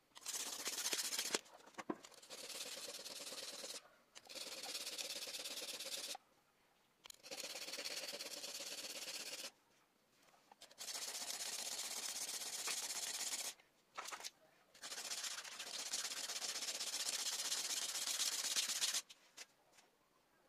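Steel knife blade being sharpened on a whetstone: a steady gritty scraping in about six stretches of one to three seconds each, broken by short silences.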